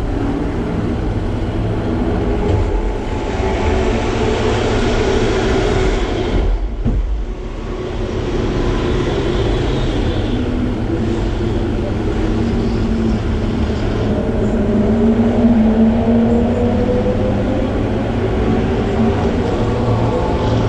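Car engines running with a steady low rumble, and one engine note climbing in pitch during the second half.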